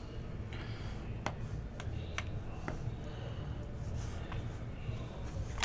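Several sharp, separate clicks and taps of a clear hard plastic card holder being handled, over a steady low hum.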